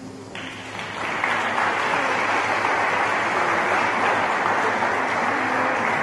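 Audience applauding, starting about half a second in and growing fuller about a second in, as the last held note of the music dies away.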